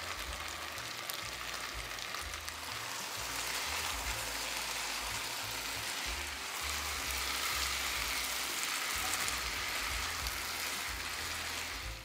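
Food frying in hot oil in a pan: a steady sizzle that grows louder about three seconds in and cuts off abruptly at the end.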